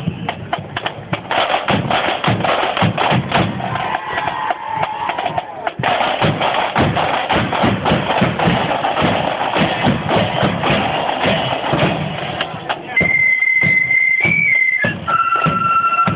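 Loyalist marching band's drums beating, with flutes coming in on held notes of a tune about 13 seconds in.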